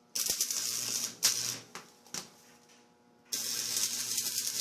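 Stick-welding arc crackling and sizzling with old welding rods. It is struck, sputters and breaks off a few times, then is struck again and burns steadily from a little past three seconds in. The welder complains that these rods won't weld the tank together.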